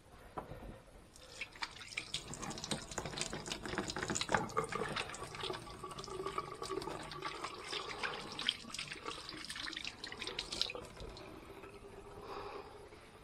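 Kitchen tap running into a sink, with hands being rinsed under the stream. The water comes on about a second in and is shut off sharply about three-quarters of the way through.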